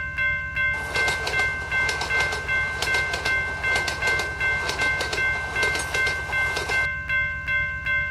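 Level-crossing warning bell ringing in a steady repeating beat, about two strikes a second. A train runs over the crossing from about a second in until near the end, its wheels clattering, and all of it cuts off abruptly at the end.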